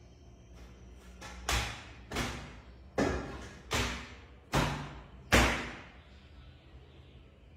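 A cloth slapped down hard on a wooden bed frame, six sharp smacks about one every three-quarters of a second.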